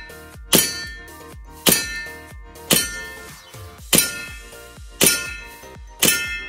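INOKATSU steel M1911A1 gas blowback airsoft pistol fired on a green-gas magazine, six shots about one a second. Each shot is a sharp metallic clang that rings on briefly.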